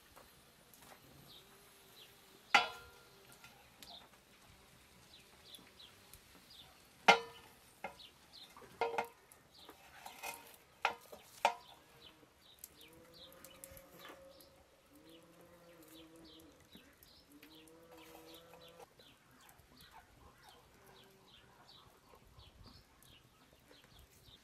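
Several sharp clinks as wooden kebab skewers are set down on an enamel plate, mostly in the first half. Small birds chirp throughout, and there are a few drawn-out farmyard animal calls in the second half.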